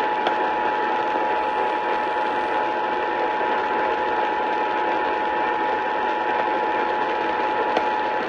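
Emergency Alert System attention signal: the two-tone alarm (853 and 960 Hz) held steadily for about eight seconds over a bed of radio static, stopping at the end.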